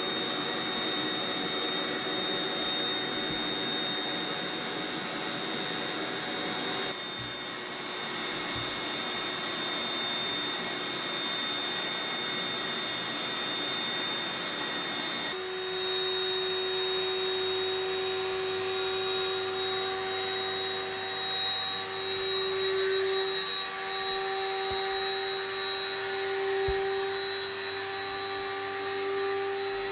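Built-in electric air pump of an Intex air bed running steadily as it blows air into the mattress, a constant motor hum and whine. Its tone changes abruptly about seven seconds in and again about halfway through.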